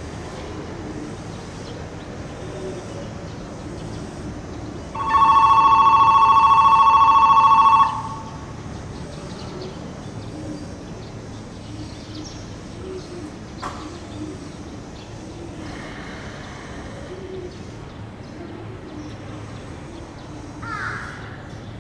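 Station platform electric bell ringing loudly for about three seconds, a steady two-tone ring that stops sharply, about five seconds in, over low station ambience.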